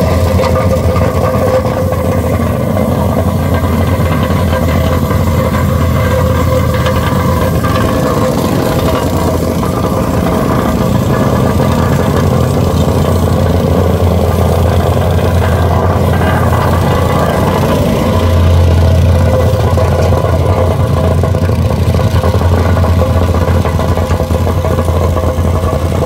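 Vibratory plate compactor's small gasoline engine running steadily, the plate pounding fresh asphalt with a deep, even hum. The hum grows louder about two-thirds of the way through.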